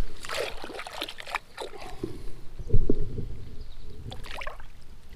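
Creek water splashing and sloshing as a hand-held freshwater drum is lowered into the water and released. There are scattered small splashes at first, then one heavier, deep slosh about three seconds in.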